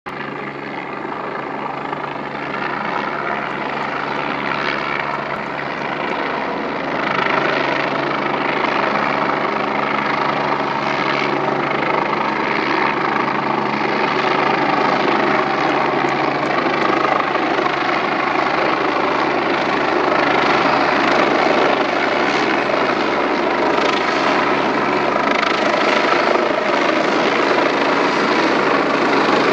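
Air ambulance helicopter flying in toward the listener, its engine and rotor noise steady in pitch and growing louder as it approaches, with a jump in level about seven seconds in.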